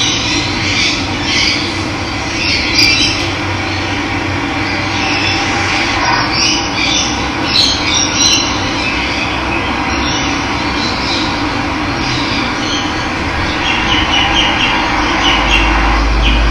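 Steady rush of running water with wild birds chirping and calling over it, in short high calls scattered throughout.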